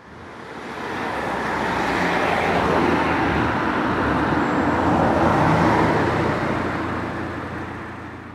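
Road traffic noise: a steady rush of passing vehicles that swells up over the first two seconds and fades away near the end.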